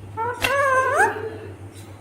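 Rose-ringed (Indian ringneck) parakeet giving one speech-like call, under a second long, that ends in an upward glide in pitch, with a sharp click near its start.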